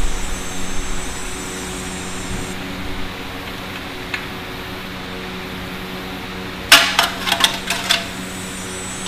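Metal hand tools clanking in a quick cluster of sharp strikes about two-thirds through, with a single light click a little before the middle, over a steady low hum.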